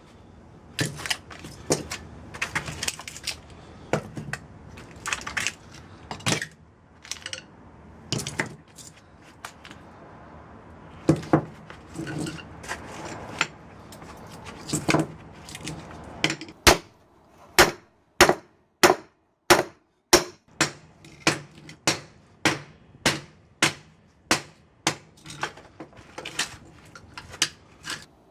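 Hammer blows on a microwave oven transformer's steel core, striking at the welds to break it apart for its copper windings. The blows come irregularly at first with some scraping and clatter, then settle past the halfway point into a steady run of about two ringing metal strikes a second.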